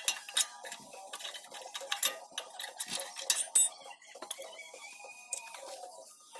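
Irregular metal clicks and clinks of brake pad hardware, the spring-steel abutment clips and pads, being handled and fitted on the caliper bracket.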